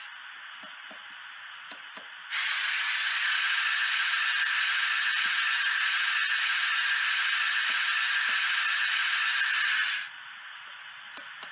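Hornby TTS sound decoder in a model Castle Class steam locomotive playing a steam-release effect: a loud, steady hiss that starts abruptly about two seconds in and cuts off near the end, over a quieter continuous background steam hiss.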